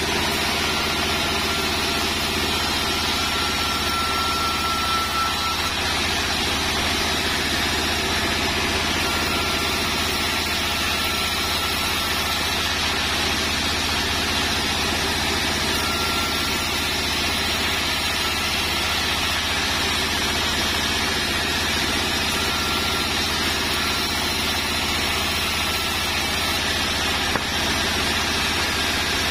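Vertical band sawmill running steadily, its blade ripping sengon wood planks into battens. It makes a continuous machine drone, with a faint thin whine that comes and goes several times.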